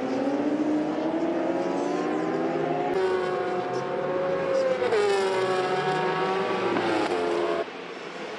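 Racing motorcycle engines at high revs, their pitch rising as they accelerate. After a cut about three seconds in, another engine holds a high note, drops in pitch about five seconds in, and cuts off near the end.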